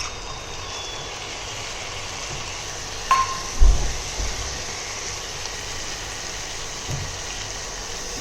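Onion and whole spices frying in oil in a pot, a steady sizzle. About three seconds in there is a sharp metal clink and then a dull thump as the chopped tomatoes are tipped in, and a lighter knock near the end.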